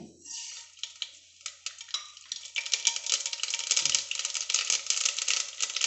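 Mustard seeds sizzling and popping in hot oil in a pressure cooker. The crackle starts sparse and turns into a dense, rapid popping about two and a half seconds in.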